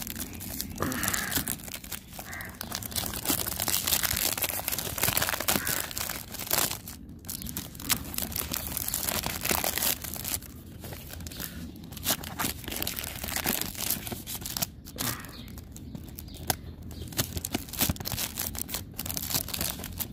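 Clear plastic shrink wrap being torn and peeled off a perfume box, crinkling and crackling unevenly with a few sharp clicks.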